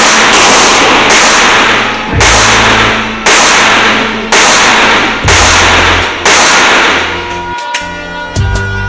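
Seven shots from a Glock pistol, fired about one a second, each ringing on in the indoor range. The shots stop about seven seconds in, and then background music with a beat carries on.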